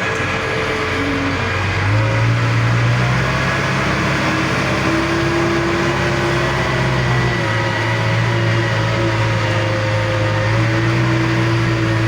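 JCB machine's diesel engine running steadily with a constant low drone, its note shifting slightly a couple of times.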